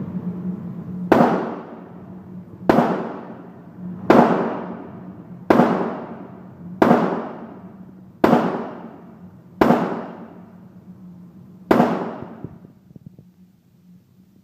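Assault rifle fired one shot at a time: eight shots about a second and a half apart, each ringing out in a trailing echo.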